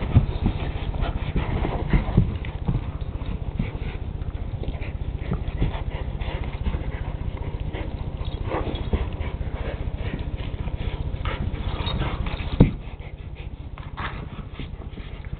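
A red-nose pit bull and a black pit bull puppy play-fighting and tugging over a sock: a steady low growl under scuffling and bumping. One sharp thump comes near the end, after which the growl stops and it goes quieter.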